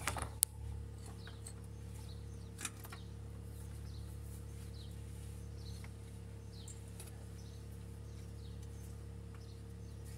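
A few sharp clicks and knocks of hands working under a car's stripped dashboard, over a steady low hum, with faint bird chirps throughout.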